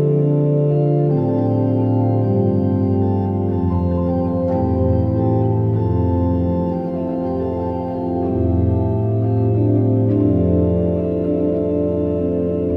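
Organ music: slow, sustained chords with a bass line that steps to a new note every second or two.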